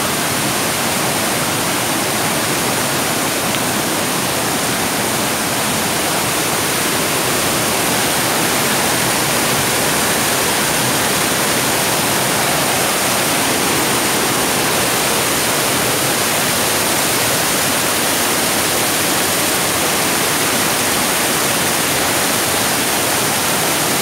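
Waterfall water rushing down a wide cascade of rock ledges, a steady, even rush of water.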